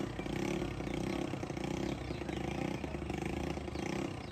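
Motorcycle engine running steadily, its pitch holding level.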